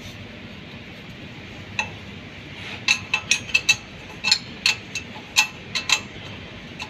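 Sharp metallic clinks of a steel open-end spanner knocking against a bolt as it is worked. One clink comes a little under two seconds in, then an irregular run of about three a second from about three seconds in, over a steady background hum.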